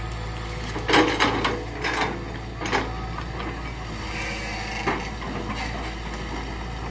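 Hitachi crawler excavator's diesel engine running steadily under load while it pushes over rubber trees. Several sharp cracks and knocks of splitting wood and branches break through it, the loudest about a second in.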